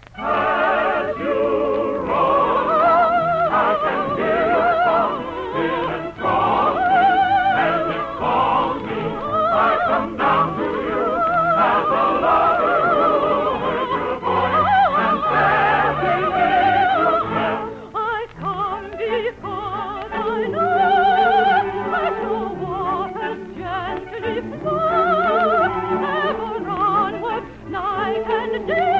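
Operetta number: a singer with wide vibrato over an orchestra, in a thin, old broadcast recording.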